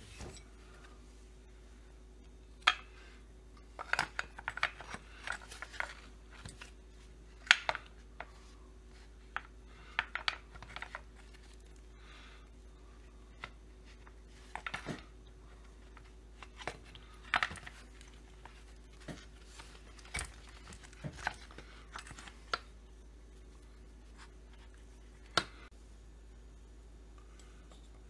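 Scattered clicks, knocks and light rubbing from the metal and plastic parts of a FarmerTec MS200t chainsaw kit, its engine and plastic tank housing, being handled and fitted together by hand. A few sharper knocks stand out among the small clicks.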